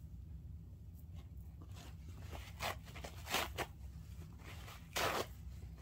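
Three short scraping, rustling handling noises, the last the loudest, over a steady low hum.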